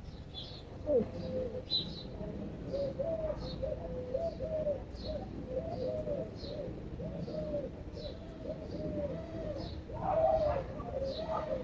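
Birds calling: a short low note repeated about twice a second, with thin high chirps over it. The calls grow busier and louder near the end.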